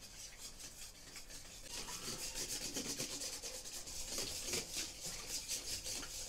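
Wire whisk beating eggs and butter in a stainless steel bowl: a fast, even rhythm of scraping strokes as the wires rub against the metal.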